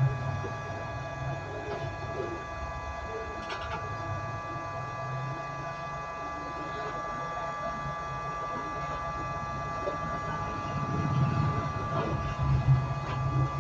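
Hot air blower running steadily to dry out water in a Bose SoundLink Color II's insides, with a few faint clicks.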